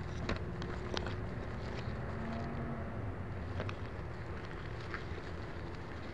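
Grass blades and dry leaves brushing and ticking against a camera strapped to a crawling box turtle, with scattered sharp clicks over a steady low rumble.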